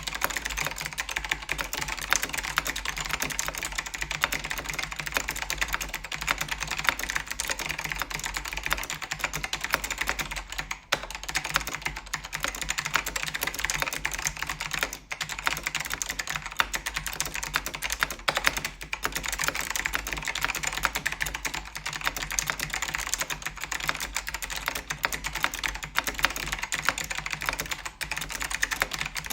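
Continuous fast typing on a Focus FK-2001 keyboard with white Alps switches, a dense clatter of keystrokes with a few short pauses, about eleven and fifteen seconds in and near the end.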